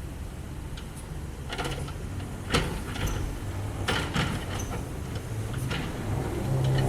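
Cat 305.5E2 mini excavator's diesel engine running steadily, with a series of sharp knocks and clatters as the bucket works the rubble, the loudest about two and a half seconds in. The engine grows louder and rises in pitch near the end.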